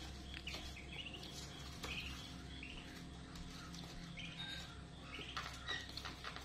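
A brood of young ducklings peeping softly, with short high chirps coming here and there.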